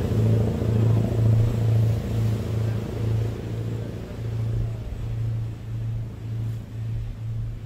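Diesel engines of a Riverine Command Boat running at speed. A low, pulsing drone over the rush of water, growing fainter over a few seconds as the boat pulls away.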